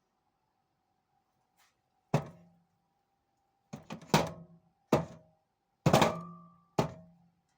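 A pepper being chopped with heavy, uneven strokes: about six loud thunks, starting about two seconds in, each with a short ringing thud.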